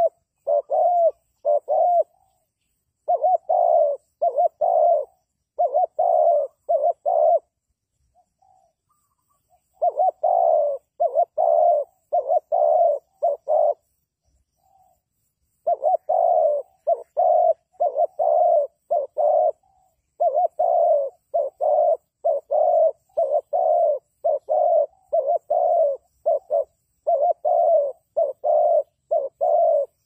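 Spotted dove cooing in several phrases of short, low coo notes, about three a second, with pauses of about two seconds between some phrases.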